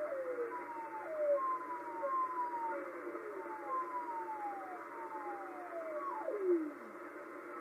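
Shortwave receiver audio on 4631 kHz: about ten odd dropping pings, each a tone gliding down in pitch over roughly half a second to a second, some overlapping. They sit over a steady hiss of radio static. The last one, about six seconds in, falls much further and faster than the rest.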